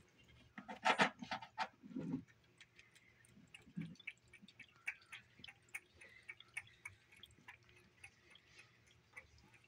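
A cat eating cereal and milk from a bowl: a louder cluster of short wet mouth sounds about a second in, then small, irregular eating clicks, a few a second.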